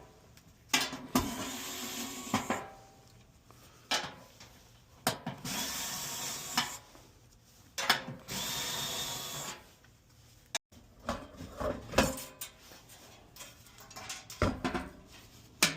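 Power drill-driver running in three short bursts of about a second and a half to two seconds each, with clicks and knocks of tools and parts being handled in between.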